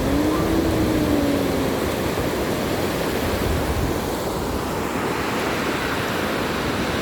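Surf breaking and washing up the beach: a steady rushing noise. Near the start a faint pitched tone rises and holds for about a second and a half.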